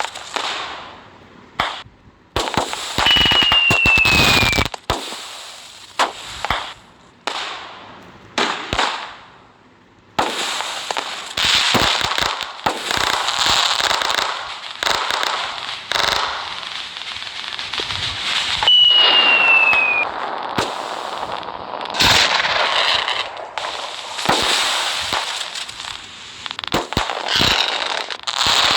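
Diwali fireworks and firecrackers going off one after another: sharp bangs and long stretches of hissing, crackling spray. A short falling whistle sounds twice, about three seconds in and again near nineteen seconds.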